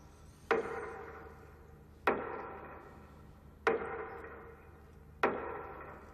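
Slow metronome beats marking a minute of silence: four strikes about a second and a half apart, each ringing and fading away before the next.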